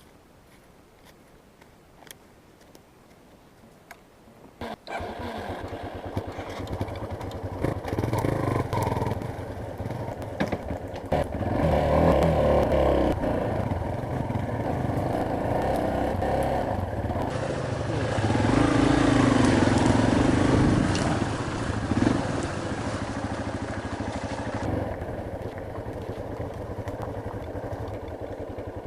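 Quiet with a few faint clicks, then about five seconds in a Yamaha Serow trail bike's single-cylinder engine comes in abruptly and runs, its revs rising and falling.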